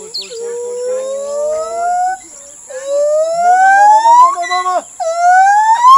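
Gibbon singing: a series of long whooping notes, each gliding up in pitch and climbing higher than the last, with a short break about two seconds in.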